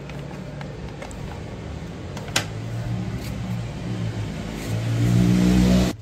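A motor vehicle engine running, steady at first and louder about five seconds in, then cut off abruptly. A single sharp click comes about two and a half seconds in.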